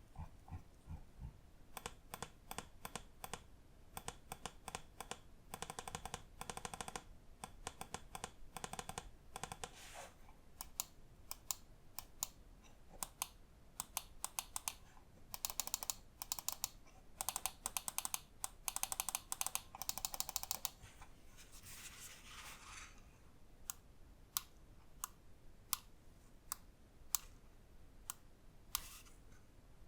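Lamzu Inca gaming mouse switches clicking: single sharp clicks and spells of fast repeated clicking. Near the end comes a short rasping stretch, then spaced single clicks.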